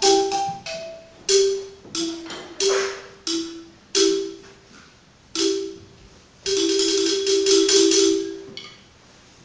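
Xylophone played with mallets: a run of single struck notes, each ringing briefly, then a fast tremolo roll on two notes held for about two seconds, stopping about a second before the end.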